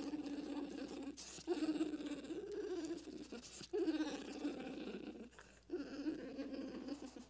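Oviraptor dinosaur creature sound effect: a run of animal-like calls, each lasting a second or two, with short breaks between them.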